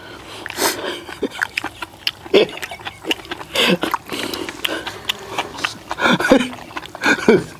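Close eating sounds of spicy stir-fried webfoot octopus: wet chewing, lip-smacking and slurping, with metal spoons clicking against metal bowls.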